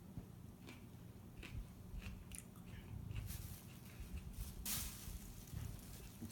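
A person chewing a raw finger pepper with faint, crunchy, wet mouth sounds and scattered crisp clicks. A brief louder rustle-like burst comes a little under five seconds in.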